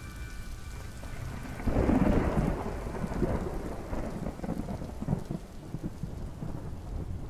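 Steady rain with a clap of thunder breaking about two seconds in, its low rumble crackling and rolling on while slowly easing.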